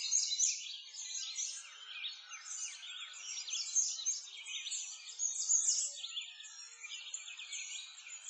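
Many birds chirping and singing at once in a dense, overlapping chorus of quick high notes, over the faint murmur of a brook.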